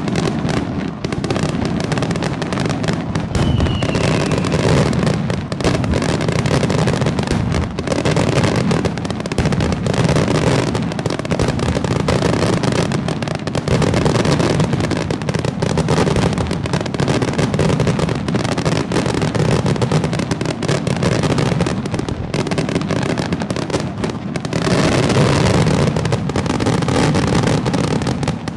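Aerial firework shells bursting in a dense, unbroken barrage, many bangs a second over a continuous rumble. The barrage gets a little louder near the end, then stops abruptly.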